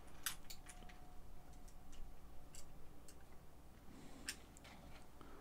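Scattered light clicks and taps of the differential case's front half being handled and fitted over the diff gears of an RC truggy.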